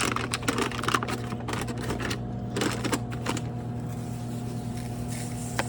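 A quick run of clicks and rattles lasting about three seconds, then stopping, over a steady machine hum; one more click comes near the end.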